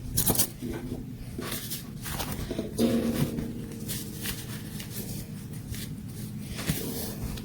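Rustling and light plastic clicks from handling the magnetic block set and its carrying bag. About three seconds in, a steady low hum starts and runs for several seconds under the handling noise.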